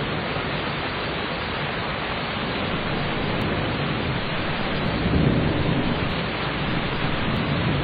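Steady rain with a low rumble of thunder swelling up about five seconds in.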